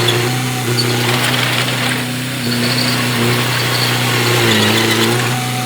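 Engine of a heavy earthmoving machine running steadily under load, its pitch rising and falling slightly, over a constant mechanical hiss.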